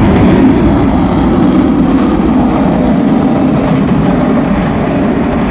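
Aircraft engine noise from display planes flying past: a loud, steady rumble.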